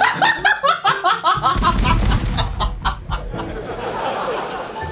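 Men laughing in quick repeated bursts for about a second and a half, then a low rumbling noise with a hissy haze that carries on to near the end.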